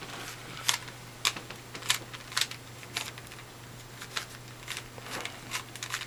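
A standard plastic Rubik's Cube being turned fast by hand, its layers clicking sharply and irregularly, about two clicks a second, over a faint steady hum.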